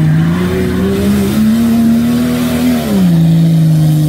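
Off-road SUV's engine revving under load on a steep slope. Its pitch climbs over the first second or so, holds, then drops about three seconds in.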